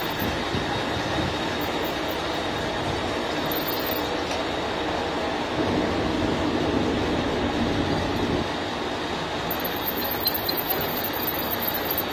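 Lathe running as a milling machine, its toothed disc cutter turning on the spindle and cutting metal under a stream of coolant: a steady metal-cutting noise, a little louder for a couple of seconds in the middle.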